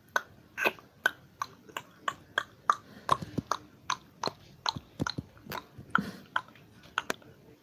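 A steady run of short, sharp clicks, about three a second, becoming less even about halfway through.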